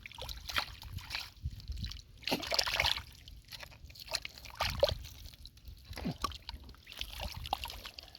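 Hands digging and sloshing through wet mud and shallow water, with irregular wet squelches and splashes.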